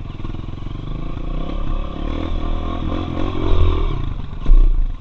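Honda CRF 230F trail bike's single-cylinder four-stroke engine running and revving up, rising in pitch, as it rides over dirt water-control mounds, with a loud thump about four and a half seconds in.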